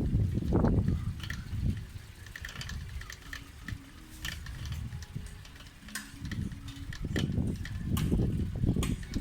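Wind rushing over the phone's microphone while riding a bicycle. It eases off in the middle and picks up again near the end, with scattered light clicks and ticks from the bicycle.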